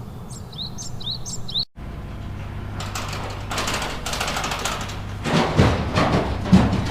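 A few short rising bird chirps, cut off suddenly less than two seconds in, followed by a steady noisy outdoor rumble with a low hum that grows louder, with a few knocks near the end.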